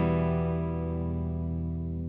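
Electric guitar with effects holding a single sustained chord that rings on and slowly fades, as in the close of a slow rock ballad.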